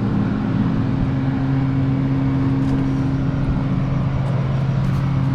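An engine running steadily at one even pitch, with no change in speed.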